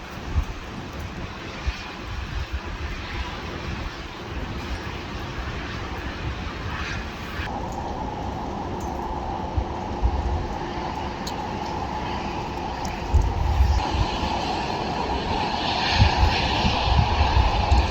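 Wind gusting against the microphone in deep, uneven rumbles over a steady outdoor rushing noise.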